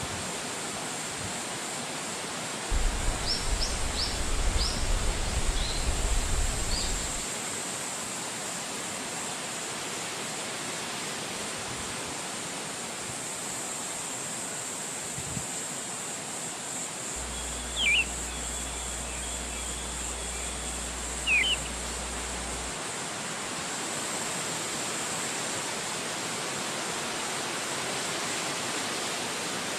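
Steady rushing of wind through forest trees, with a few short, high bird chirps a few seconds in and two brief, downward-sweeping bird calls past the middle.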